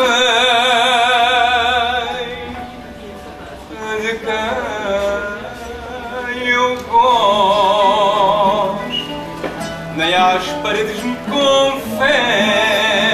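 Fado singing: a solo voice holding long notes with a wide vibrato, three times, over a plucked guitar accompaniment.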